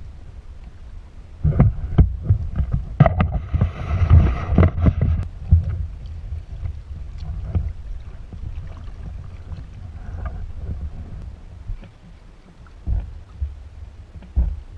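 Hooked tarpon thrashing at the surface beside a kayak: water splashing with knocks and thumps, loudest for about four seconds starting a second and a half in, then fainter knocks with a couple of louder ones near the end. Wind rumbles on the microphone throughout.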